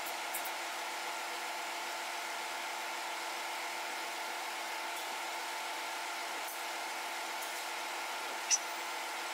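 Steady machinery hum with a hiss, unchanging throughout, and one short click about eight and a half seconds in.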